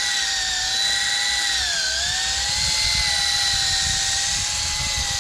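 Electric drill running a 1000-grit sanding pad, wet-sanding a cloudy plastic headlight lens. It gives a steady whine that sags briefly in pitch about two seconds in as the pad is pressed harder.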